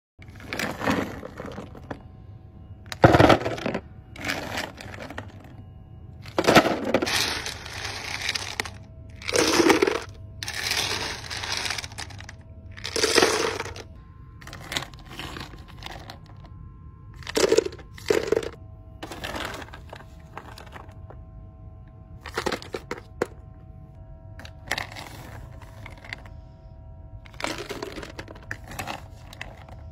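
Loose chocolate candies scooped from the bins and tipped into a paper cup, rattling and clattering against the cup and each other in a string of pours, the longest about two seconds.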